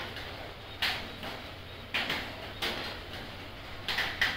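A hand rubbing a cat's fur close to the microphone: several brief swishes about a second apart, two in quick succession near the end, over a steady low hum.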